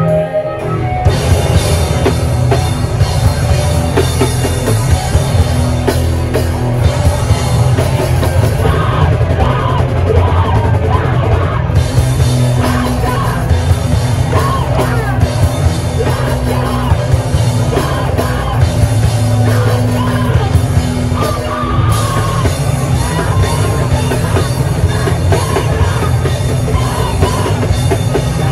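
A rock band playing live at full volume: drums, guitars and yelled vocals, with the full band coming in about a second in.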